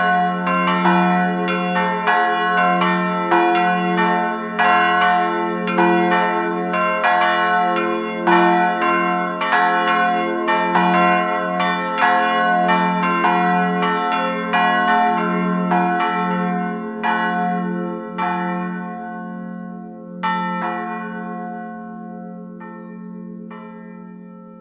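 Three church bells ringing together, strikes following one another roughly twice a second over a steady low hum. From about seventeen seconds in the strikes thin out and the ringing dies away, leaving the hum fading.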